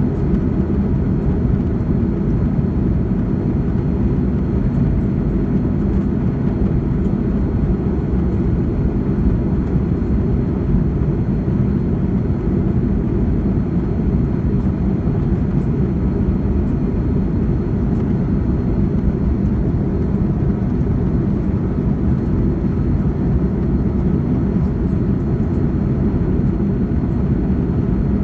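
Jet airliner engine and airflow noise heard inside the cabin in the climb after takeoff: a steady, loud low rumble with a faint high whine over it.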